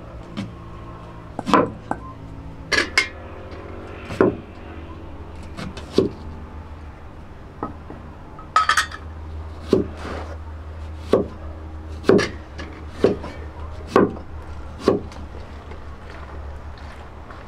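Sharp, irregular knocks, about one a second, from a large knife chopping vegetables on a board, mixed with clinks of utensils against bowls.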